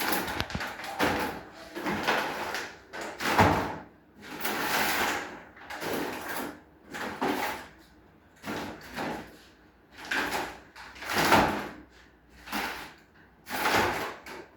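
A series of loud scraping, sliding strokes, roughly one a second, as material or an object is moved by hand.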